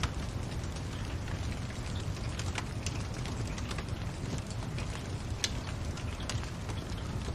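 Wood fire crackling in a fireplace: irregular sharp pops and snaps over a steady low rumble, with a brighter snap about two and a half seconds in and another a little past the middle.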